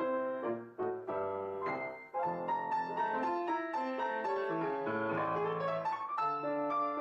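Background music led by piano, a melody of quick notes over lower bass notes.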